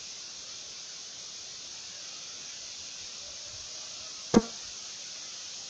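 A bait catapult snapping once as it is fired, a sharp crack with a brief twang a little over four seconds in, over a steady outdoor hiss.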